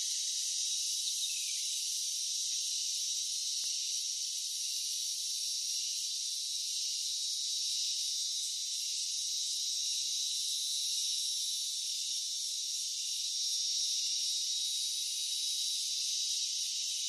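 Steady, high-pitched chorus of insects, unbroken and even in level, with no low sounds beneath it.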